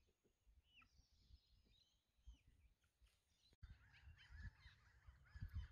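Near silence with faint, scattered bird calls. After a break a little over three and a half seconds in, a busier twitter of distant bird calls comes in over a low rumble.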